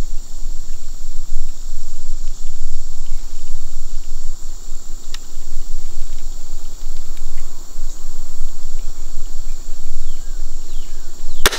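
Steady chorus of insects with a high, shrill drone. Just before the end comes a single sharp snap: the Barnett Whitetail Hunter II crossbow firing a bolt.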